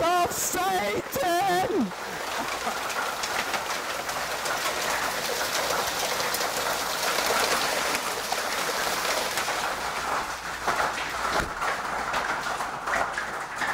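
Hail and heavy rain pelting down in a steady, dense roar of countless small impacts, from a storm dropping hailstones up to ping-pong-ball size.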